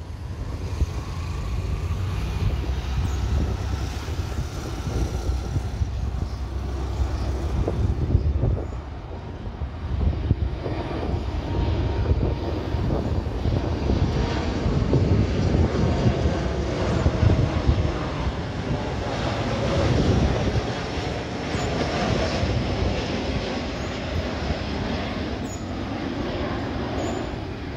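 Jet noise from a Boeing 737 MAX 8 airliner's two CFM LEAP-1B turbofan engines as it passes low overhead on final approach with its landing gear down. It is a steady, loud rush that swells toward the middle as the plane goes over, with faint pitched tones that bend in pitch while it passes.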